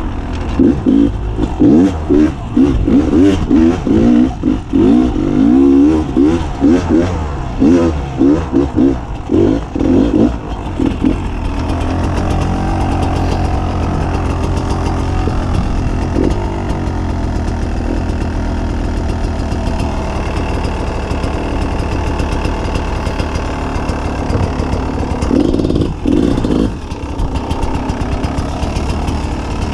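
Beta 300 RR two-stroke enduro bike engine on a trail ride: choppy, repeated bursts of throttle for the first ten seconds or so, then running more steadily at a lower level, with another short burst of throttle near the end.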